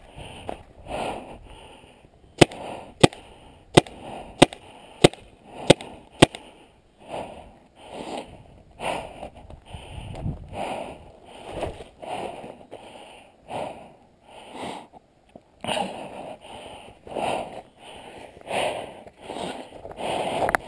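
Seven sharp paintball marker shots in quick succession, about one and a half a second, with hard, heavy breathing close to the microphone throughout.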